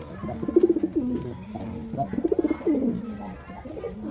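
Male domestic pigeon cooing: a string of rolling, throaty coos, each phrase ending in a falling glide, about three phrases in all.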